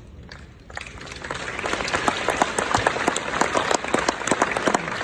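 Audience applauding: the clapping starts about a second in and swells quickly to a full, steady round of applause.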